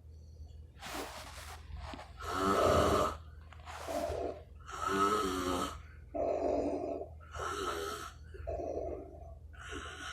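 A man snoring heavily, a string of loud breaths in and out about one a second, some with a pitched rattle, the loudest about two and a half seconds in. It sounds like breathing through diving equipment.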